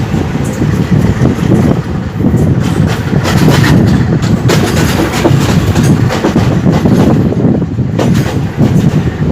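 Passenger train running on the rails with a loud, steady rumble, its wheels clacking and rattling over rail joints, most thickly in the middle of the stretch and once more near the end.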